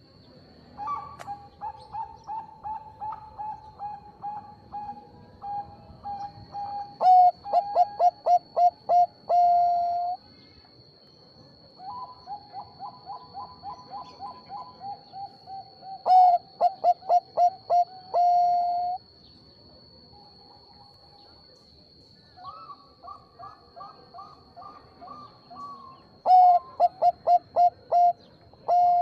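Bangkok-strain zebra dove (perkutut) singing three song phrases. Each phrase is a run of quick coo notes that ends in louder, clipped notes and one longer final coo.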